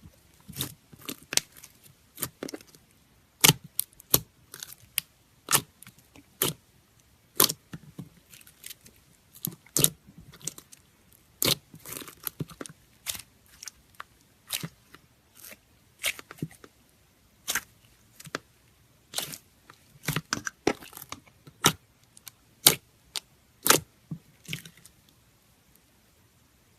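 Slime being pressed and squished by hand, giving sharp, irregular crackling clicks and pops, about one to three a second, that stop shortly before the end.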